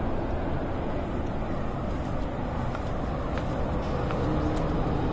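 Steady low rumbling outdoor noise with no clear single source, with a few faint ticks in the second half.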